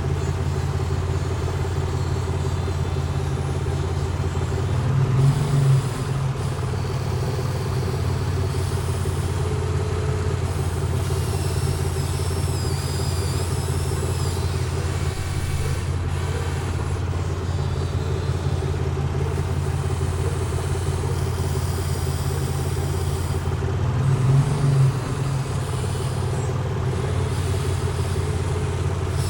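Excavator engine running steadily, swelling briefly twice as it takes load, about five seconds in and again near the end.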